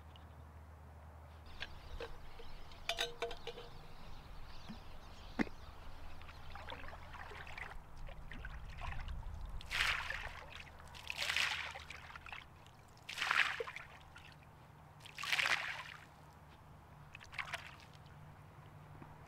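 Lake water sloshing and splashing as metal camp cups are rinsed at the shoreline, with a few light metal clinks about three seconds in. In the second half the cups are scooped full and tossed out about every two seconds, each throw a short splash.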